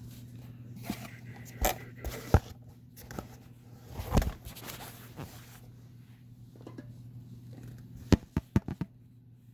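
Handling and unpacking noises of a diecast metal model and its packaging: scattered knocks, rustles and scrapes, then a quick run of four sharp clicks near the end.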